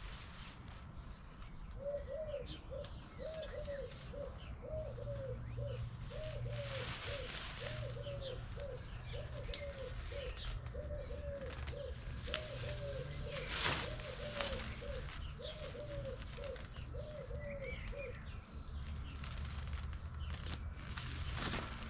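A pigeon cooing over and over in a steady repeating phrase, stopping a few seconds before the end. Underneath are rustles and clicks of a nylon tent rain fly being handled and clipped on, the loudest a sharp click about two-thirds of the way through.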